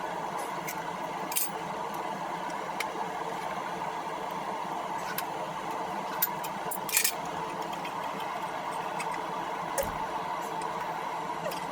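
A blacksmith's forge running with a steady drone from its burner or blower, with a few sharp ticks and clinks on top, the loudest about six and seven seconds in.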